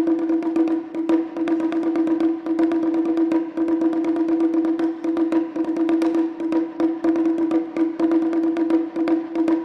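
Japanese taiko ensemble music: a rapid run of sharp clicking wood-like percussion strikes over one steady, sustained pitched note.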